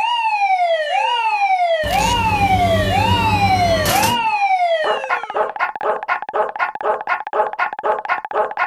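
Cartoon level-crossing alarm sound effects. First comes a siren-like wail in five falling swoops, each under a second, with a low rumble underneath from about two seconds in. From about five seconds in there is a fast electronic ding at about four beats a second, like a crossing warning bell.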